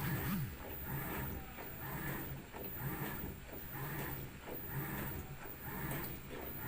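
LG Smart Inverter top-load washing machine agitating its load: the drum turns back and forth, churning the water in rhythmic swishing swells about once a second.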